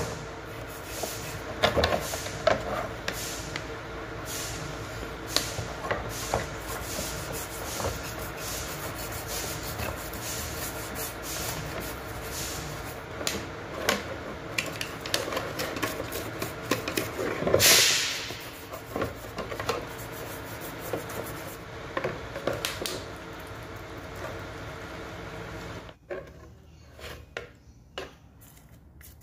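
Toothbrush scrubbing a plastic power-drill housing in a basin of water: a continuous scratchy rubbing broken by frequent small knocks of plastic against plastic, with one louder burst just before the 18-second mark. About 26 seconds in the scrubbing stops, leaving only a few small clicks and splashes.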